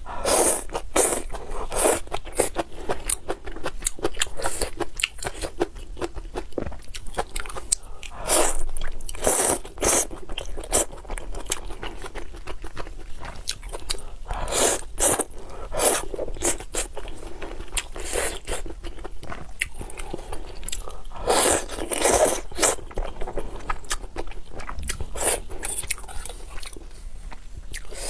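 Close-miked eating of spicy rice noodles in broth: wet slurping of noodle strands and chewing. The loudest slurps come in bouts every several seconds, with softer chewing and mouth noises between.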